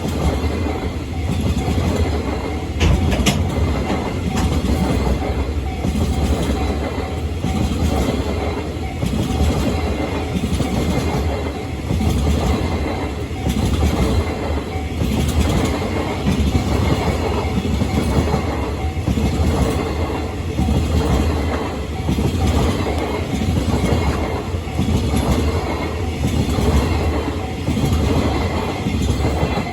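Freight train of Chiki flat wagons rolling past close by, its wheels clattering rhythmically over the rail joints.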